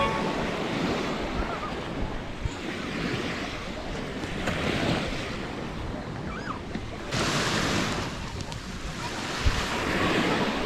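Baltic Sea waves washing onto the beach, the surf swelling every couple of seconds, with wind buffeting the microphone.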